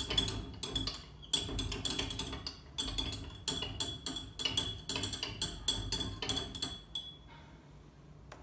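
Glass stirring rod clinking rapidly against the inside of a glass Erlenmeyer flask, stirring dilute hydrogen peroxide with food-coloured soapy water. The ringing clinks stop about seven seconds in.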